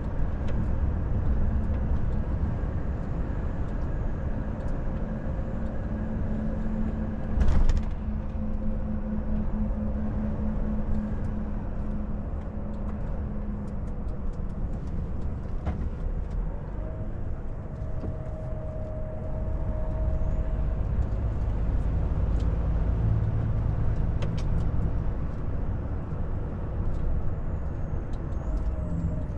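Volvo FH 460 truck's diesel engine and road noise heard inside the cab, running steadily as the truck slows on a winding road. A single loud thump about a quarter of the way in.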